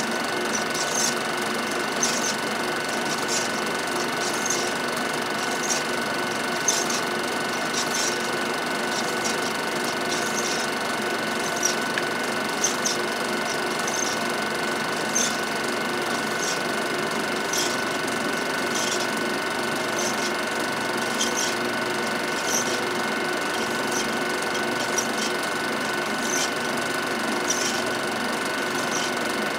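Home-movie film projector running: a steady mechanical whir with a light, regular click about once a second.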